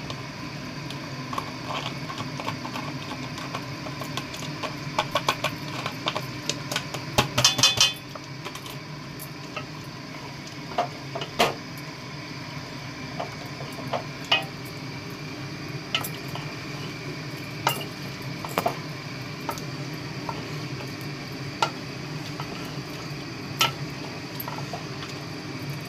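A spoon stirring chicken in a large metal cooking pot, with scattered clinks and scrapes against the pot. About seven seconds in there is a quick run of louder clatters. A steady low hum runs underneath.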